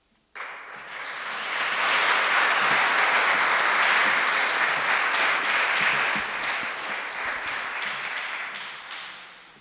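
Audience applauding. The clapping starts suddenly, swells over the first couple of seconds and dies away gradually near the end.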